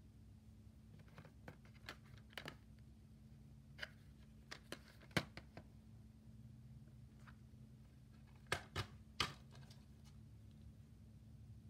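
Plastic DVD keep case being handled, turned over and taken away: scattered light clicks and taps, the sharpest about five seconds in and a quick cluster around eight to nine seconds in, over a faint steady hum.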